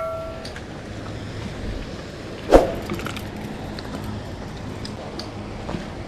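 A bell-like chime, the subscribe-button sound effect, rings out and fades in the first half-second. About two and a half seconds in comes a single sharp thump over a steady low background hum.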